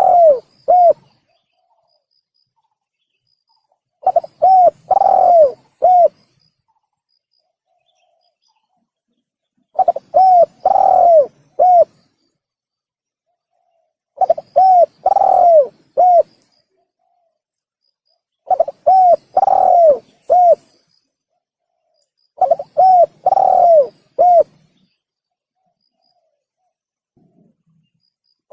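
Spotted dove (tekukur) cooing: a repeated phrase of short coos around one longer, swelling coo, each phrase about two seconds long and coming back every four to five seconds with silence between. This is a looped lure-call recording.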